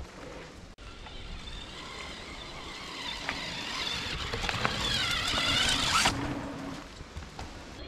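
Mountain bike rolling fast over a dirt trail: a steady rasp of tyres on gravel with wind on the microphone. Around the middle a high whine wavers up and down for about two seconds.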